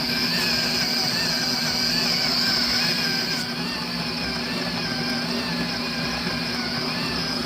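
Built-in coffee grinder of a Ninja espresso machine running steadily while grinding coffee beans.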